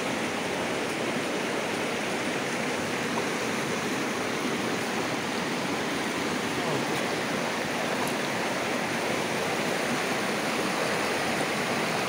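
Mountain stream rushing over rocks: a steady rush of water that does not change.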